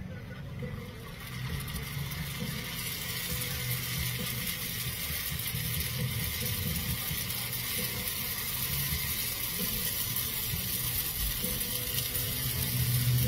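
Hot oil sizzling in a small cast-iron skillet as crab rangoons fry, the hiss swelling up about a second in and then holding steady over a low rumble. The oil is hot enough that the cook thinks it may be a little too hot.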